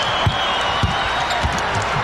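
Arena crowd noise with a basketball being dribbled on a hardwood court: three bounces about 0.6 s apart.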